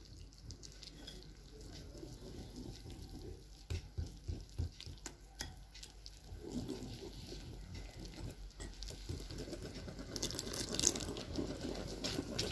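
Wire whisk beating wet gram-flour batter in a ceramic bowl: quiet sloshing of the batter with many light clicks as the wires tap the bowl.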